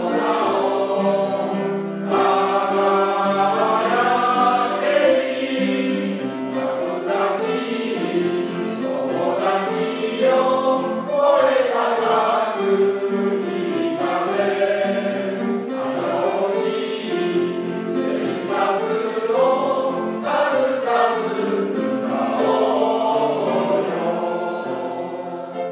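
A choir singing a Japanese camp song, with several voices sounding together in one continuous sung passage.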